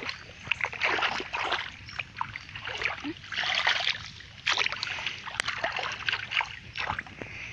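Footsteps splashing and squelching through mud and shallow water: an uneven run of wet sloshes with scattered sharp clicks.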